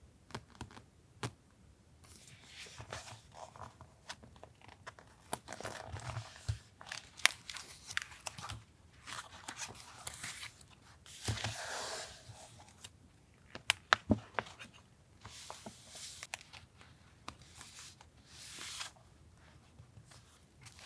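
Paper and stationery packaging handled close up: repeated crinkling, rustling and tearing strokes, with sharp taps and clicks in between.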